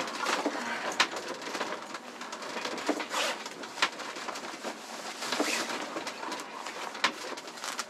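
Sailboat under way in strong wind: a steady rush of wind and water, with repeated sharp knocks and creaks from the boat.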